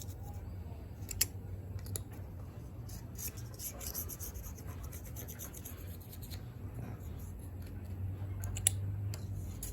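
Razor blade scraping old Honda Bond sealant off the bare aluminium mating surface of a K24 engine block: faint, intermittent scratching. A sharp tick comes about a second in and another near the end, over a steady low hum.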